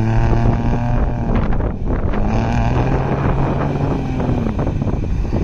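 Ford F-150 Raptor's 3.5-litre EcoBoost V6 running under load while driving off-road, its pitch rising and falling twice, with wind noise.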